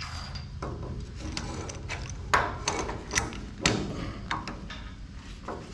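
A handful of sharp knocks and clanks, about six spread over a few seconds and loudest in the middle, from tools and metal workpieces being handled and set down on a workshop bench.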